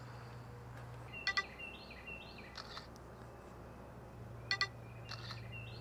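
Smartphone camera shutter sound, a quick double click, heard twice about three seconds apart, with birds chirping faintly in the background.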